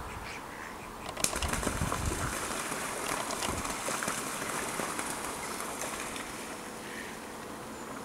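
Waterbirds on a pond: a sudden flurry of wing-flapping and splashing starts about a second in and slowly fades over several seconds.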